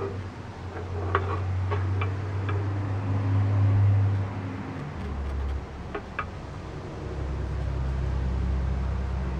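Low steady mechanical hum that drops to a lower pitch about halfway through, with a few light clicks and taps as a soapstone block is handled on a bandsaw table.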